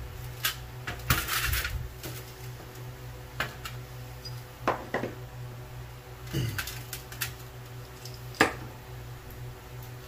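Quick-release bar clamps being loosened and taken off a sand-casting flask, giving scattered clicks, ratchet snaps and metal clinks as they are released and set down, over a steady low hum.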